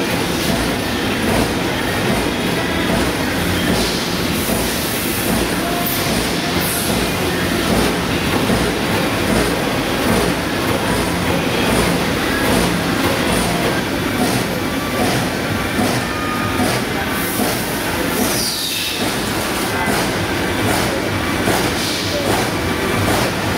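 LVD Shape Delta CNC punch press running a program: a continuous, dense rattle of rapid repeated punch strokes as the sheet is moved under the punch head. A short falling whine comes about nineteen seconds in.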